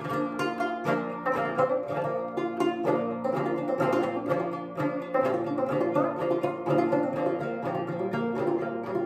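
Homemade fretless minstrel banjo, its skin head played in a steady, rhythmic run of plucked notes.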